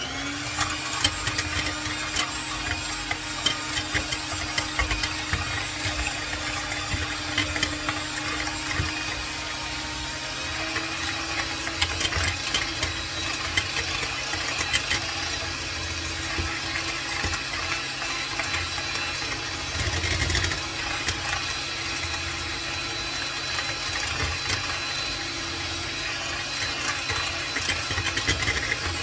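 Electric hand mixer switched on and running steadily, its beaters clicking and rattling against a stainless steel bowl as it whips eggs and sugar until the mixture turns pale.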